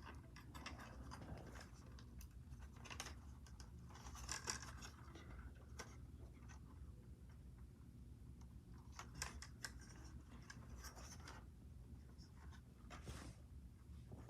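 Faint scratching and a few soft clicks of packaging being handled by hand, scattered through otherwise near silence.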